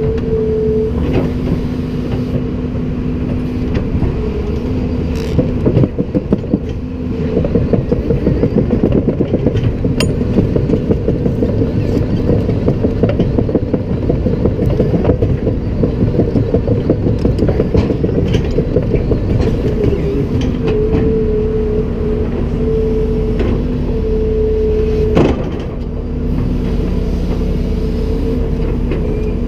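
Komatsu PC290-10 excavator's six-cylinder diesel running at a steady hum while the machine works. About seven seconds in, a fast, even clatter sets in and lasts roughly a dozen seconds, and a few sharp metallic knocks come through near the start, in the middle and near the end.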